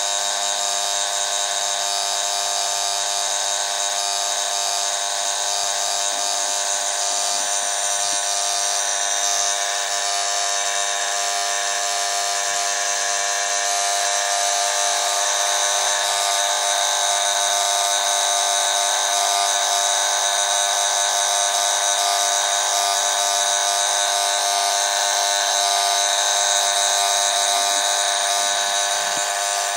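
Steady electrical buzz from the ultraviolet lamps' ballast gear, a dense stack of constant tones that does not change.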